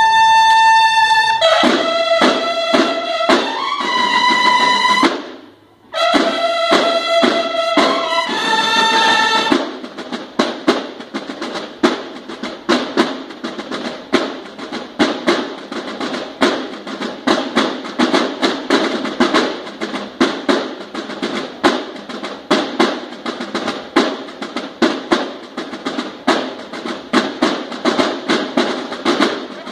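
Banda de guerra of bugles and snare drums playing: a bugle call of held notes with a short break near the start, then from about a third of the way in the drums take over with a fast, steady rolling rhythm.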